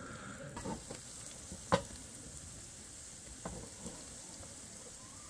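Savoury pancake (jeon) sizzling in oil in a frying pan, a steady frying hiss, with a sharp click about a second and a half in and a fainter one later.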